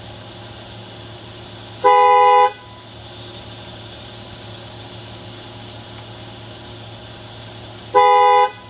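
Car horn honking twice in short half-second blasts about six seconds apart, each a loud two-tone note.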